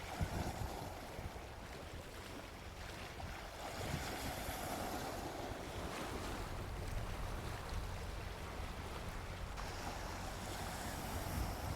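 Gentle sea waves washing onto a beach in slow swells, with a few low thumps of wind buffeting the microphone just after the start and near the end.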